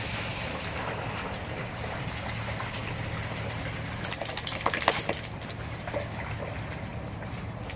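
Dogs splashing through shallow water lying on a pool cover, with a burst of splashes from about four seconds in lasting a second and a half. Under it runs the steady hiss of a garden hose spraying.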